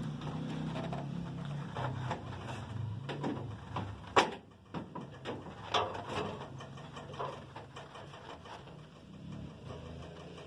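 Irregular sharp clicks and small metallic snaps of tie wire being twisted and fastened onto welded wire mesh, with one loud click about four seconds in. A low steady hum runs underneath, weaker in the middle.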